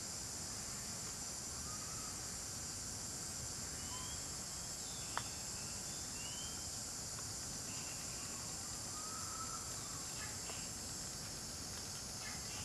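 Steady high-pitched drone of insects, with faint short chirping calls scattered through it and one sharp click about five seconds in.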